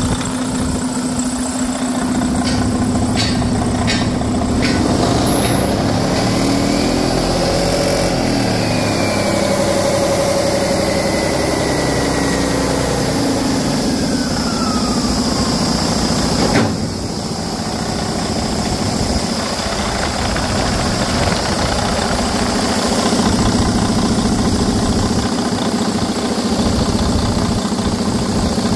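Detroit Diesel DD15 inline-six diesel engine running at idle. In the first half the pitch rises and slowly falls back, with a thin whistle sliding down, and there is one sharp click about halfway through.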